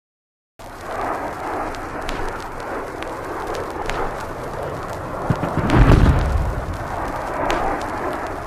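A recorded military explosion sound effect starts about half a second in: a loud, noisy rumble with scattered sharp cracks, and one heavy low boom about six seconds in.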